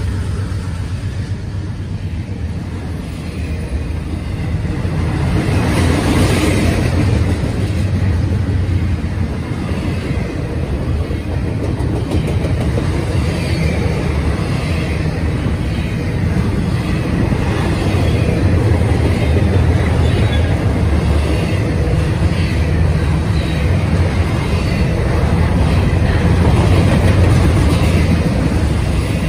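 Double-stack container well cars of a Norfolk Southern intermodal freight train rolling past, a steady noise of steel wheels on the rails with the rattle of the cars.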